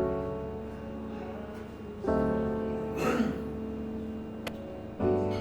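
Background music: three sustained chords, one struck about every two and a half seconds, each slowly dying away. A brief noise about three seconds in.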